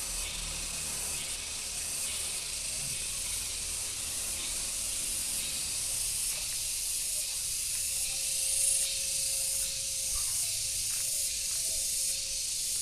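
Steady high-pitched outdoor hiss, with a faint steady hum coming in about halfway through.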